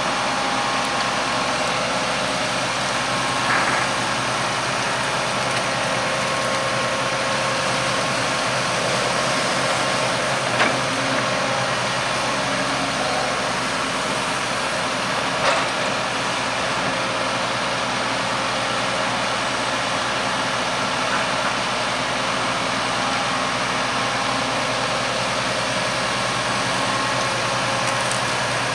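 Diesel engines of a tracked excavator and a farm tractor running steadily while the excavator loads a slurry spreader, with three brief knocks.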